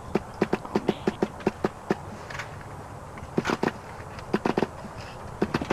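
Quick bursts of sharp clicking and clatter from the pull starter of a nitro RC car's glow engine as it is yanked in short pulls. The engine turns over without catching, with a short pause about halfway through.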